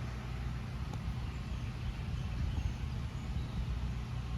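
Portable generator running steadily, a constant low hum.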